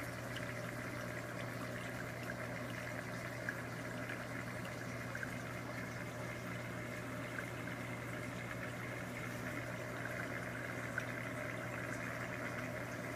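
Reef aquarium equipment running: a steady low pump hum under continuous trickling, splashing water from the tank's circulation, with a few faint clicks.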